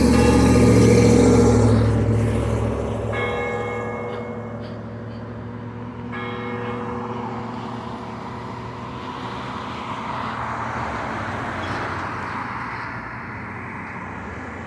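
Church bell tolling: two strikes about three seconds apart, each ringing on and slowly fading. A passing vehicle's rumble is the loudest sound at the start.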